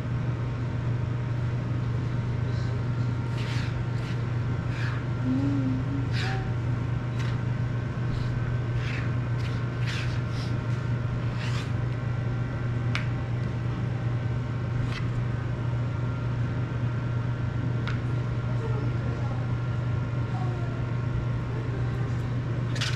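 Small sharp clicks and taps, scattered irregularly, as the plastic frame and parts of an FPV quadcopter are handled and fiddled with, over a steady low room hum.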